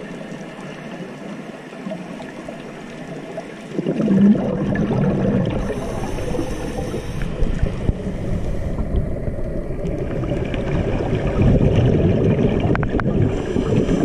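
Underwater ambience picked up by a camera in its housing, a rushing, gurgling water noise that gets markedly louder about four seconds in as the camera moves through the reef.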